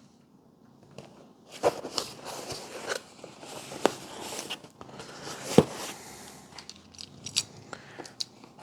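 A shipping package being handled and opened: irregular crinkling and crunching of packaging, with sharp clicks and taps. It starts about a second and a half in, and the loudest snap comes past the middle.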